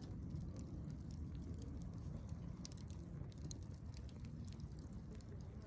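Wood campfire crackling, with scattered sharp pops over a low steady rumble.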